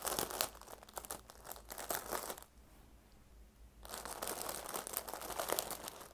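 Clear plastic packaging around a terry-cloth baby bathrobe crinkling as a hand presses and handles it, going quiet for about a second in the middle.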